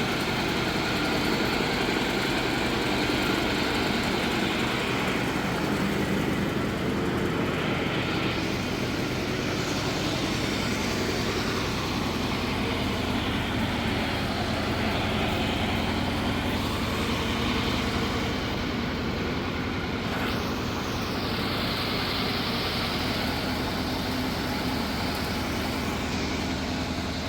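An engine running steadily throughout.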